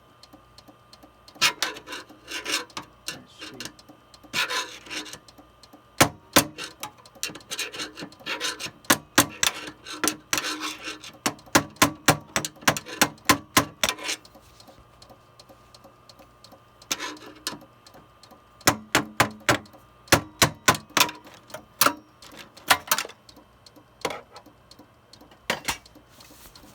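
Rapid, irregular clicking and scraping from inside an open, running Compaq desktop computer, in long bursts with short pauses, over a faint steady hum. Just before this the machine was described as making big clunky noises.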